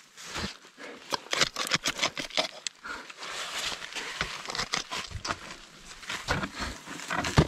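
Irregular crunching and scraping in heavy, crusty spring snow: the boot kicks and steps of a climber downclimbing, with a sharper crunch near the end.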